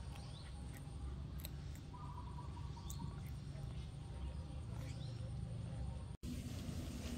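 Faint outdoor background: a steady low rumble with a few faint bird chirps and small clicks. The sound drops out for an instant about six seconds in.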